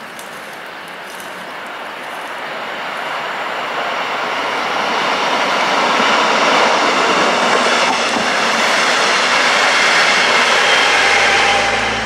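Red double-deck regional push-pull train passing on the tracks below, its wheel and rail noise building steadily over the first half and staying loud through the second half.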